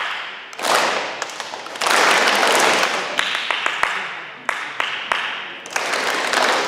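A group of children clapping, in several bursts that each start suddenly, with the loudest burst beginning about two seconds in.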